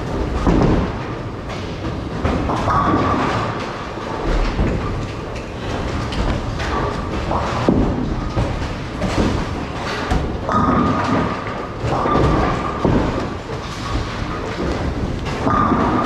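Bowling alley din: bowling balls rolling down the lanes with a continuous rumble, and pins being knocked down with repeated clattering knocks and thuds.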